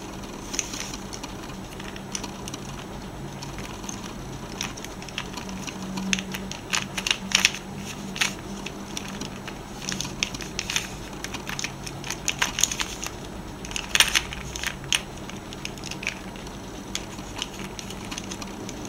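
Plastic pyramid twisty puzzle turned by hand, its pieces clicking and clacking in irregular runs of sharp clicks, thicker in a few quick bursts.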